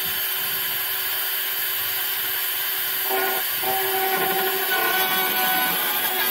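Small high-speed rotary tool with a fine drill bit whining as it drills out Bondo-filled holes through fresh car paint, its tone shifting about three seconds in.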